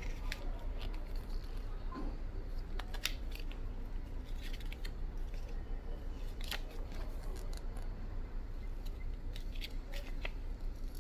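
Handling noises of a phone box and its packaging being unpacked: scattered clicks, taps and rustles, over a steady low hum.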